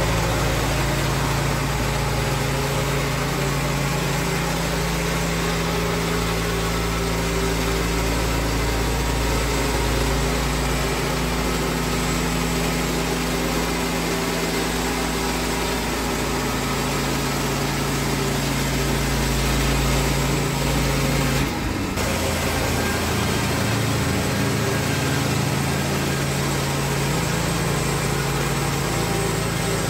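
Woodland Mills HM122 portable bandsaw mill running steadily on its gas engine as its band blade saws a board off a squared cant. There is a short break in the sound about two-thirds of the way through, then the same steady running resumes.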